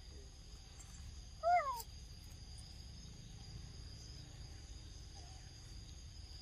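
A monkey gives one short call that rises and then falls in pitch, about a second and a half in, over a steady high insect drone.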